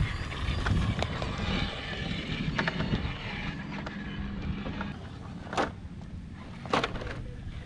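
Element RC Enduro Knightrunner 4x4, a 1/10-scale electric RC crawler, whining as it crawls while its tyres grind and scrabble over bare rock. Two sharp knocks come about a second apart near the end.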